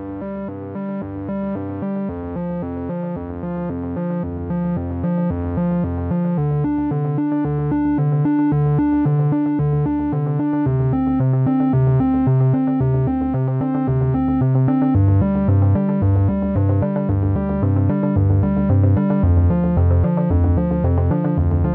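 Background music: synthesizer and keyboard notes over a steady pulsing rhythm, growing gradually louder.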